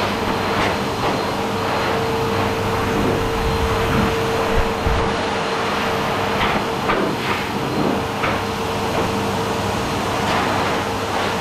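High-velocity dog dryer blowing a steady blast of air through its hose nozzle into a Bernese mountain dog's thick coat, with a constant motor hum under the rush of air.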